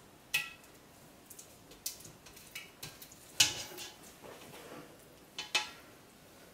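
A few scattered light knocks and clinks of a utensil against a pot and soap molds while soap batter is spooned out, some with a brief ring; the loudest comes about three and a half seconds in.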